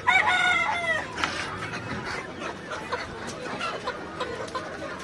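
A chicken gives one loud, harsh squawk lasting about a second at the start, followed by quieter clucking and shop noise.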